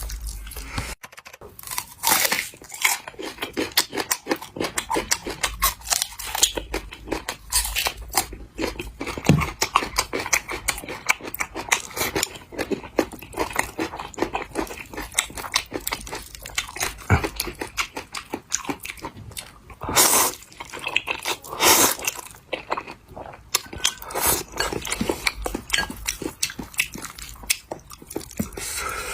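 Close-miked eating of a bowl of noodles: continuous wet chewing and mouth smacks, with a few louder slurps of noodles, one about two seconds in and two more around two-thirds of the way through.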